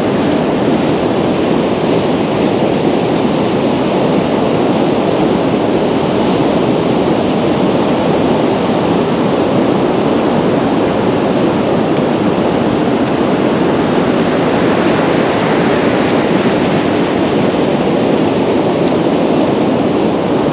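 Rough sea surf breaking on the beach, with wind on the microphone: a loud, steady rush of noise with no distinct events.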